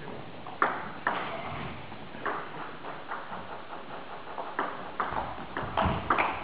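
Table tennis ball clicking off the bats and the table during a rally: short sharp ticks, sparse at first and coming faster in the second half, with a little hall echo.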